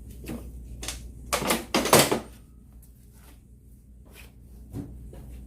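A few knocks and clunks of things being handled and set down, the loudest cluster about one and a half to two seconds in, with a smaller knock near the end.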